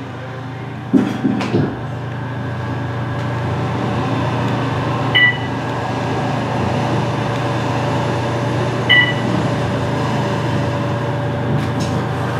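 Otis Gen2 elevator car in motion: a steady hum and rush that grows slowly louder as the car travels, with a couple of knocks about a second in. Two short electronic chimes sound about four seconds apart.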